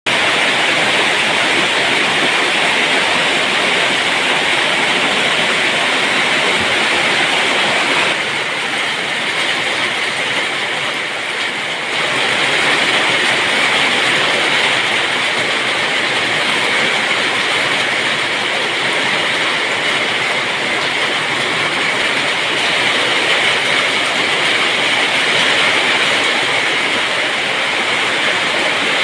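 Heavy rain pouring down in a steady, loud hiss, easing slightly for a few seconds about a third of the way through.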